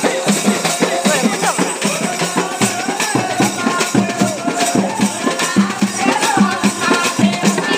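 Festival procession music: frame drums beaten in a fast, even rhythm under a wavering melody line, with rattling percussion over it.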